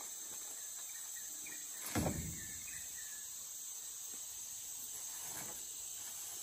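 Steady high-pitched insect chorus of crickets or similar night insects, with one dull thump about two seconds in.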